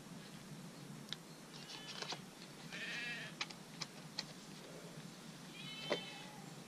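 Small clicks and taps of hands handling spinning reels and their packaging, with an animal calling twice, briefly, about three seconds in and again near the end.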